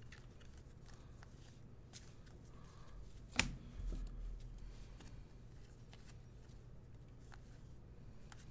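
Baseball cards being handled and sorted by hand: faint flicking and sliding of card stock, with one sharp click about three and a half seconds in, followed by a low thump.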